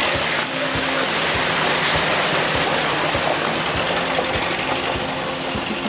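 UAZ four-wheel-drive vehicle driving through a shallow stream: its engine running under load, with steady splashing and rushing of water churned up by the wheels.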